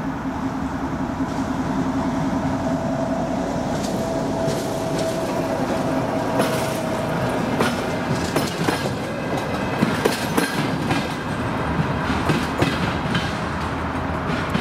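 Red diesel track motor car (motovoz) drawing near along the rails, its running sound rising over the first couple of seconds. From about six seconds in, its wheels clack repeatedly over rail joints and points.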